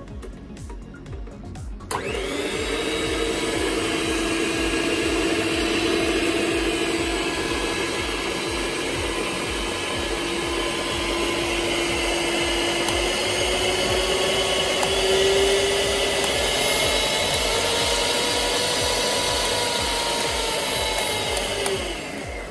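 Farfalla FFM-6503B2 stand mixer's electric motor switching on with a click about two seconds in, its beaters spinning in an empty bowl with a steady whine. The pitch creeps up a little midway through, and the motor winds down just before the end as it is switched off.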